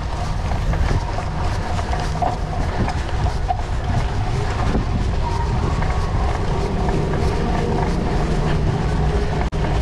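Steady rumble and rattle of a cyclocross bike ridden fast over a sandy course, with wind noise on the camera microphone. The sound cuts out for an instant near the end.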